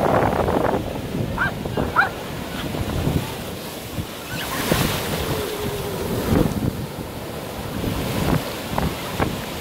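Sea surf breaking and washing up the shore around the ankles, a continuous uneven wash, with wind rumbling on the microphone.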